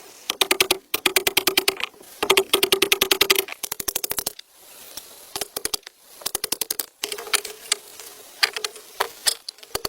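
Rapid runs of sharp clicks or taps, about a dozen a second, coming in bursts of roughly a second with short pauses between.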